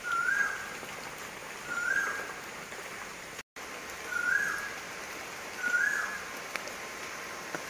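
Steady rain falling, with a bird repeating a short whistled note four times, each sliding up and then holding, roughly every two seconds.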